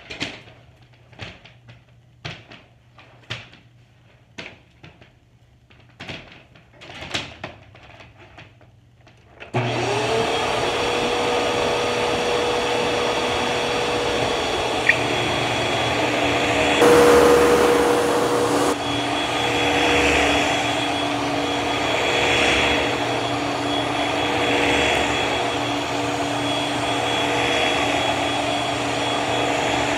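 A run of separate clicks and knocks, then about ten seconds in a 2006 Hoover WindTunnel 2 bagless upright vacuum switches on, its motor whining up to a steady running pitch. It gets louder for a couple of seconds, then runs on with a regular swell every couple of seconds. This is a unit whose owner says it has no suction though it is not clogged.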